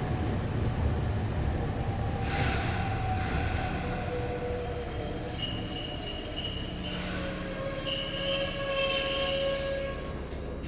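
Nagano Electric Railway 8500-series electric train braking into a station, heard from inside the car: a low running rumble with high, steady wheel-squeal tones that set in about two seconds in, fading as the train slows to a stop near the end.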